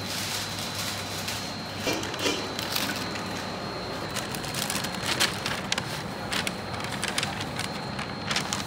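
Steady kitchen hum with a thin high tone, overlaid by scattered crackles and clicks of paper wrappers and paper takeaway bags being handled.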